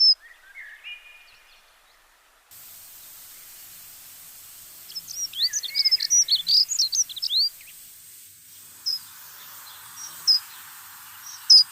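Small birds chirping and twittering in quick runs of short high notes, thickest a few seconds in, then single chirps spaced a second or so apart over a steady hiss.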